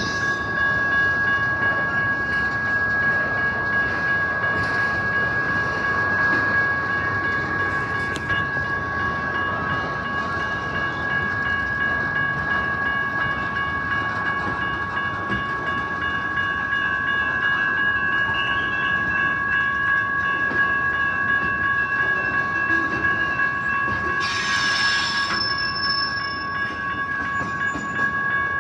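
Freight train cars rolling past a grade crossing, a steady rumble of wheels on rail, with two steady high-pitched tones ringing throughout. A brief hiss comes about 24 seconds in.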